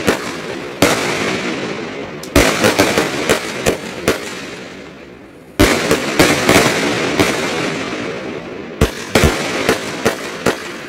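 Pyro King Buck Fever 200-gram 25-shot fireworks cake firing: sharp bangs of shots and breaking shells come in bunches roughly every three seconds, each bunch trailing off into a fading hiss.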